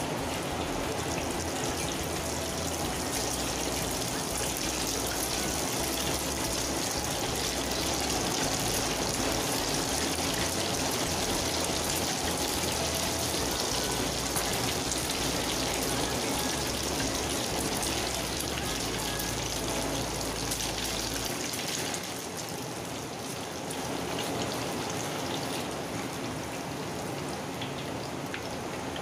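Thin egg batter frying in hot oil in a wok: a steady crackling sizzle that eases off a little about three-quarters through.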